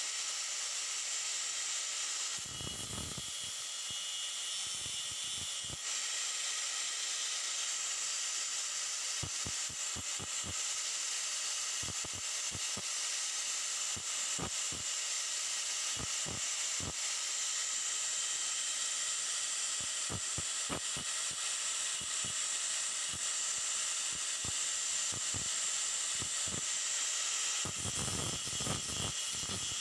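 Electric angle grinder with a cut-off disc running steadily with a high hiss, as the wood-screw ends set into a plastic speedometer drive gear are ground down against the spinning disc. Short ticks are scattered through it.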